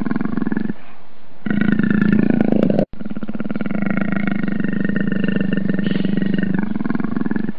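A leopard's long, rumbling growl with a fine, rapid pulse to it. It eases briefly about a second in and cuts out abruptly for an instant just under three seconds in.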